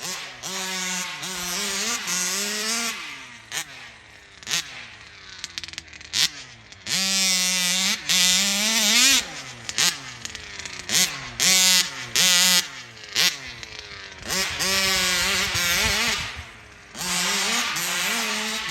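1/5-scale RC car's Taylor RC big bore two-stroke gas engine running hard, its pitch holding at high revs in stretches and repeatedly rising and falling as the throttle is worked, with short sharp blips between runs.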